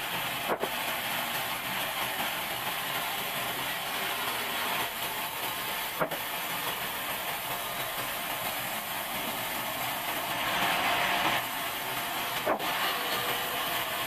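Large sawmill bandsaw running and cutting through an old pine beam, a steady hissing saw noise. It grows louder for about a second near ten seconds in, with three sharp knocks spread about six seconds apart.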